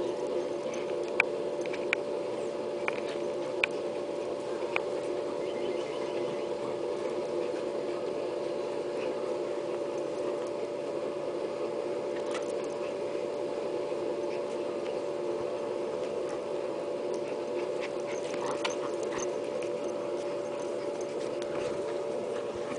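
A miniature pinscher making play noises while tugging at a towel, over a steady unbroken hum. Several sharp clicks come in the first five seconds, and a few more come around the middle and near the end.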